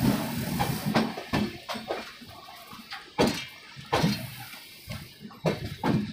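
Passenger express train running at speed, heard through an open window: an irregular clatter of wheels knocking over rail joints and points, over a steady rush of running noise that is loudest at the start.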